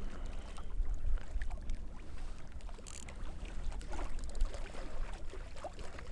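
Wind buffeting the microphone in a gusty low rumble, with small clicks and knocks from a feeder rod being fitted into its rod stand, and a brief rattle about three seconds in.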